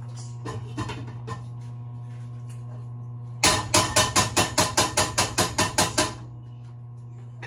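Rapid, evenly spaced run of about fourteen sharp kitchen knocks, about five a second, over a steady hum. A few lighter clatters come between about half a second and a second and a half in.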